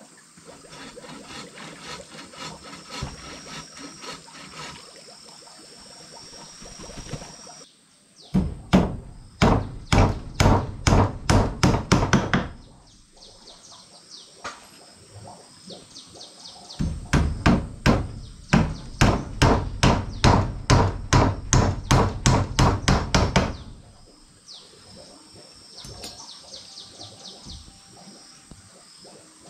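Hammer driving nails into a wooden porch railing: a run of steady blows about three a second starting some eight seconds in, then a longer run after a short pause. A faint high chirping goes on between the runs.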